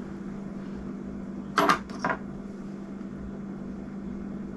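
Steady low hum with two brief, sharp handling noises about a second and a half in, as fingers pick at a tiny retaining pin on a baitcasting reel's worm gear.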